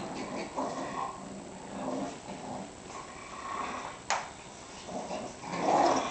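Two small dogs play-growling at each other while tugging at a toy, in irregular bursts that are loudest near the end. A single sharp click sounds about four seconds in.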